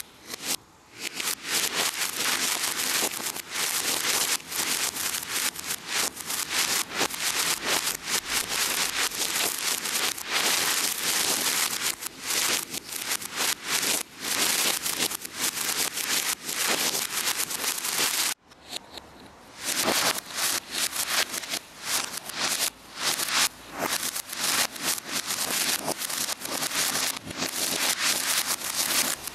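Ground fountain fireworks spraying sparks with dense crackling over a hiss, played backwards. About eighteen seconds in the sound drops away for a moment, then the crackling picks up again.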